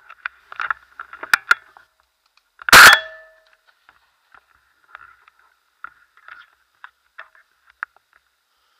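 A single shotgun shot, heard from a camera mounted on the barrel, a little under three seconds in: very loud, with a short ringing tail. Scattered small clicks and knocks of the gun being handled come before and after it.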